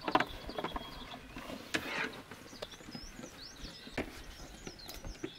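Footsteps and the rustle of movement for the first two seconds or so, then a small bird chirping in short rising and falling notes from about two and a half seconds in.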